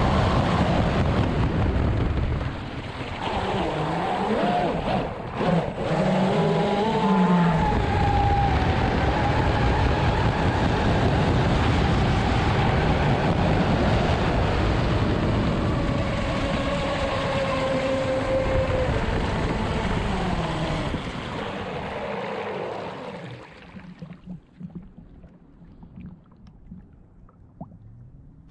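Pro Boat Zelos 36 RC catamaran's twin brushless electric motors running at high speed, with loud rushing hull-on-water noise and a whine that rises and falls in pitch. About 23 seconds in the power is cut, and the sound drops to faint small water splashes as the boat coasts.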